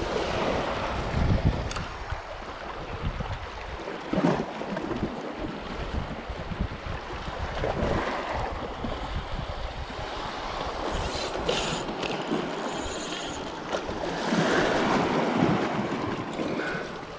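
Small waves washing over shallow shoreline rocks, with wind gusting on the microphone. A few brief knocks, the clearest about four seconds in.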